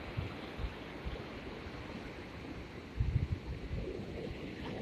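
Ocean surf breaking and washing on the beach, a steady rushing noise, with a louder low rumble about three seconds in.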